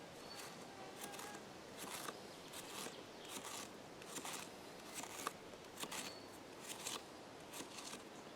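Cold Steel Recon 1 Tanto folding knife cutting through young potatoes: faint, crisp cuts at about two a second, unevenly spaced.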